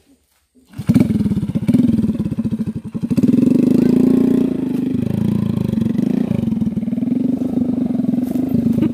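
A small engine running with a rapid pulsing beat. It comes in suddenly about a second in, wavers in pitch and strength for the next couple of seconds, then holds steady.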